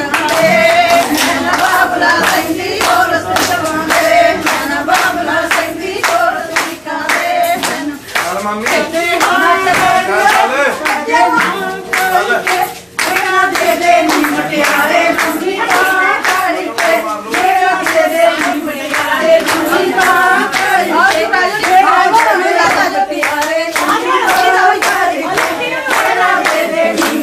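Women singing Punjabi boliyan together, their hands clapping in time to a steady beat for giddha dancing. There is a brief break about halfway through.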